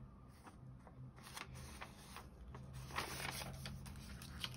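Faint rustling of an old printed paper page as hands unfold and handle it, with small clicks and a louder rustle about three seconds in.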